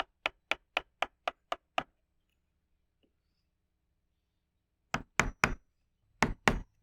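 Hammer striking a wood chisel, cutting a shallow mortise into a wooden door edge: a quick run of about eight light taps, about four a second, then after a pause two short groups of louder strikes near the end.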